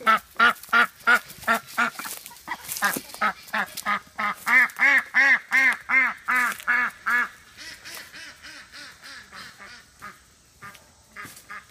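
Female Welsh Harlequin duck quacking loudly in a fast run, about three quacks a second for some seven seconds, then fainter, scattered quacks: her call for her flockmates.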